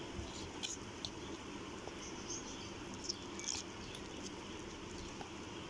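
A spoon stirring gram flour (besan) and water into batter in a bowl: soft, irregular scraping with small scattered clicks.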